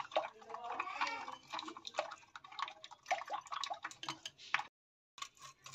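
Metal spoon stirring a thin custard-powder paste in a bowl, giving quick irregular clicks and scrapes against the bowl with wet stirring sounds. This is the mixing that works the custard powder into a smooth, lump-free slurry.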